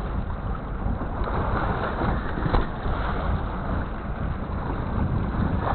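Steady rushing wind and sea noise aboard a small fishing boat at sea, with wind buffeting the microphone. A single short click about two and a half seconds in.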